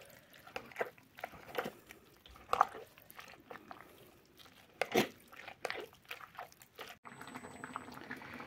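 Scattered soft knocks and wet, crunchy squelches from a pot of crushed mulberries being handled and mashed, two of the knocks louder. A faint steady hiss takes over near the end.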